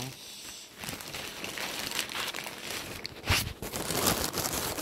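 Plastic bags crinkling and rustling as they are handled, with a sharper crackle a little over three seconds in.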